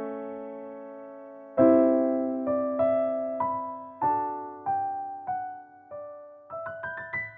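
Background piano music. A held chord fades and a new chord is struck about one and a half seconds in. A line of single notes then steps downward, giving way near the end to quicker notes climbing upward.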